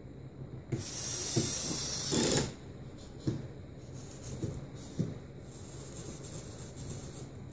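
Dynamixel servo motors of a robot arm whirring with a high-pitched whine as the arm grips and lifts, loudest about two seconds in, then a few short clicks and another fainter whirr as the arm swings. A steady low hum runs underneath.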